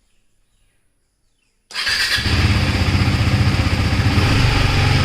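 After near silence, the KTM Duke 390's single-cylinder motorcycle engine comes in abruptly nearly two seconds in and then runs loud and steady.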